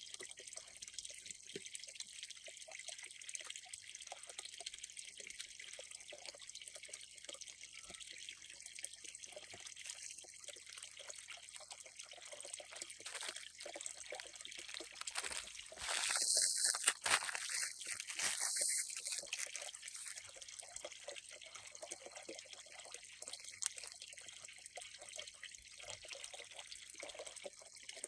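Water trickling and dripping into a garden pond, with a louder splashing stretch from about 16 to 19 seconds in.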